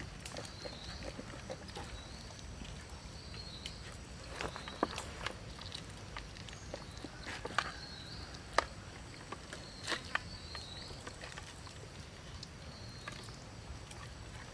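Hands handling a raw chicken and wooden sticks: scattered clicks, knocks and soft wet handling noises. A low hum and repeated short high chirps run underneath.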